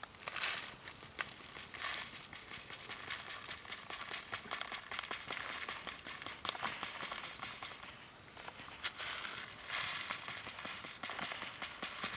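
Dry crackling of a Swedish torch, a split upright log burning under a steel mug, mixed with the crinkle of a paper packet being tipped over the mug. Sharp small snaps run throughout, with louder rustling stretches about half a second in and again around nine to eleven seconds.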